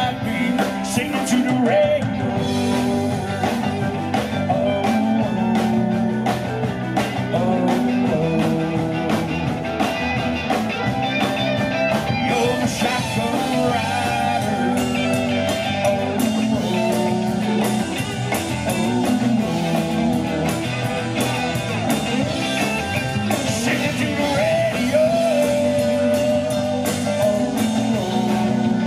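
A live country-rock band playing through a PA: electric guitars, drums, keyboard and fiddle, with a singer's voice over the top.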